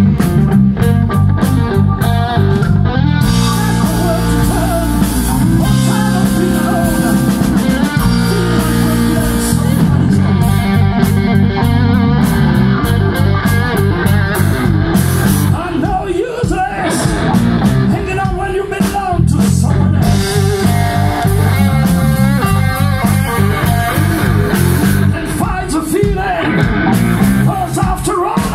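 Live blues-rock band playing: electric guitar over keyboards, bass and drums, with a singer at the microphone.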